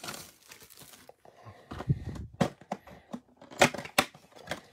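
A cardboard trading-card blaster box being handled and torn open: scattered tearing and crinkling, with a few sharp snaps. The snaps are loudest a little past halfway.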